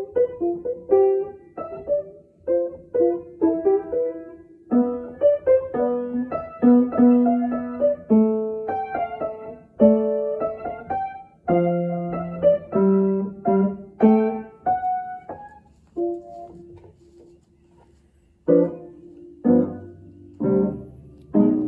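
Piano playing a slow, halting melody of single notes and chords, each note struck and left to fade. Near the end it thins to one quietly held note before louder chords come back in.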